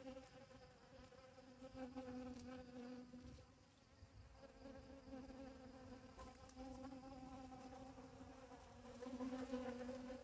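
Honeybees buzzing as they forage for pollen in a flower: a faint, wavering wingbeat hum that swells and fades as bees come and go, dipping about four seconds in and growing louder near the end.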